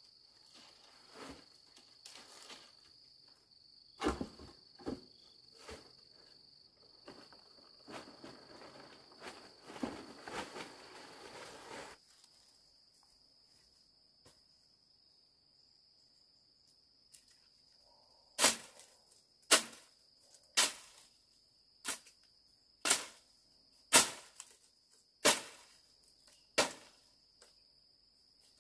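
Eight sharp strikes, about a second apart, starting past the middle, over a steady high-pitched insect drone. Before them come scattered knocks and rustling, then a pause.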